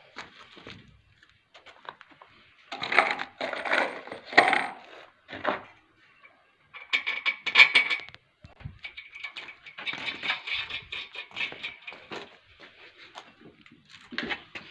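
Metal clinking and scraping in several irregular bursts as the steel rotating collar on a mini crane's mast is turned by hand around the post, the longer bursts carrying a high steady ring.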